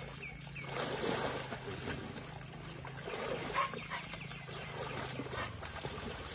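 Baby elephant splashing and wallowing in a shallow mud puddle: irregular sloshing and wet slaps of muddy water, strongest about a second in and again around three seconds in.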